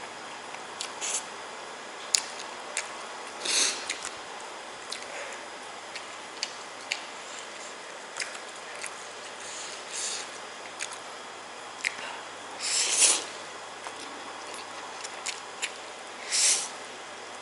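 Scattered small clicks and a few short rustles, as of objects being handled, over a steady background hiss; the loudest rustle comes about two thirds of the way through.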